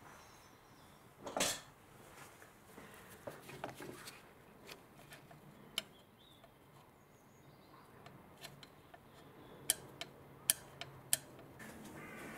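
Faint scattered clicks and taps, with one short scrape about a second and a half in: a hand and tool working at the edge of a ribbed belt pulley to clean off melted belt rubber.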